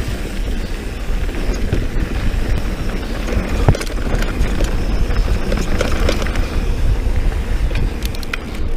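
Mountain bike descending a dirt trail at speed: a steady rumble of wind on the microphone and tyres rolling on dirt, with the bike rattling and a few sharp knocks over bumps.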